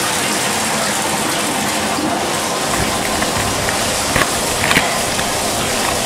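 Bathtub faucet running, a steady stream of water pouring from the tub spout into the tub. A couple of light clicks come about four and five seconds in.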